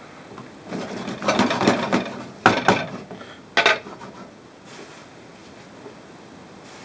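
Wooden spatula stirring and scraping chopped vegetables and meat around a nonstick frying pan, followed by two sharp knocks about a second apart.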